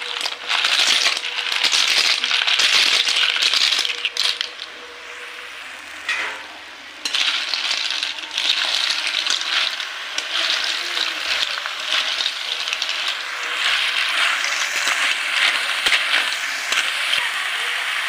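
Water snails in their shells poured into a metal kadai, the shells clattering against the pan and each other. After a short lull about four seconds in, they rattle on continuously as they are stirred through the masala with a spatula.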